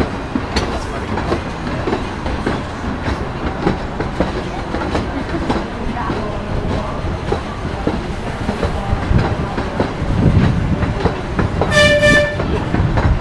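Amusement-park train running along its track with steady wheel clatter. A horn sounds once, briefly, near the end.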